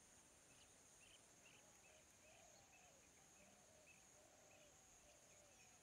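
Very faint field ambience: a steady high-pitched insect drone with faint, repeated short bird calls, roughly two a second.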